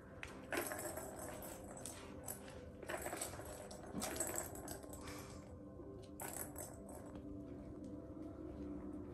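Balls rattling around the plastic track of a tower-of-tracks cat toy as a kitten bats at it, in four short bursts.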